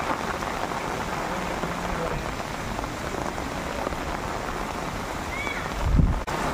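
Heavy rain falling on floodwater: a steady hiss of drops striking the water's surface. Near the end a brief low rumble rises over it.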